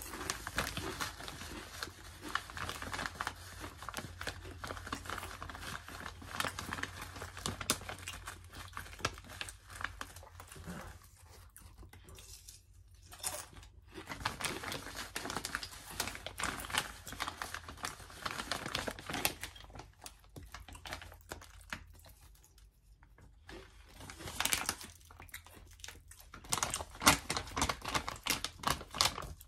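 Wavy potato chips crunching as they are chewed, mixed with the foil chip bag crinkling as it is tipped up to the mouth. The crunching comes in dense runs with a couple of short pauses.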